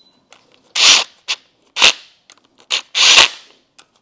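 Ryobi cordless impact driver hammering in short bursts, with two longer runs about a second in and about three seconds in, as it runs down the bolts of an LS V8's front cover.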